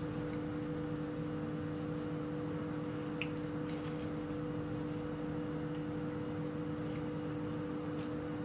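Pieces of marinated chicken being pushed onto a bamboo skewer, a few faint soft wet ticks, over a steady background hum with two held tones.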